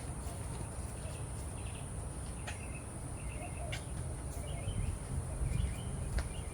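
Outdoor ambience: small birds chirping in short trills over a steady high-pitched insect drone and a low rumble, with a few sharp clicks.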